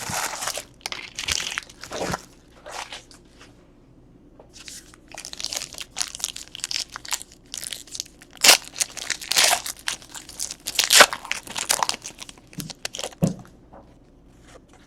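Trading card pack wrappers crinkling and tearing as packs are ripped open and cards handled, in runs of short rustling bursts with a lull about three seconds in.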